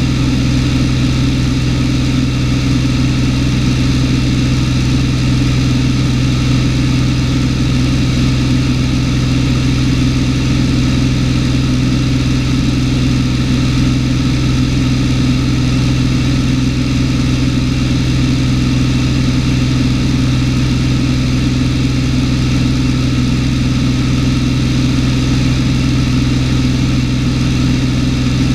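Cessna 210's six-cylinder piston engine and propeller running steadily in flight, heard from inside the cabin as a constant, unchanging low hum.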